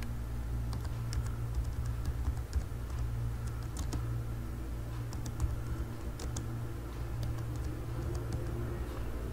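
Computer keyboard keystrokes typing a filename: irregular quick clicks, a few at a time with short pauses. A steady low hum runs underneath.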